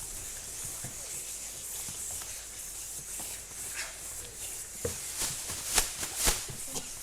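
Hand-made foley rustling and rubbing, a steady scratchy hiss, with a few sharp clicks about five to six seconds in.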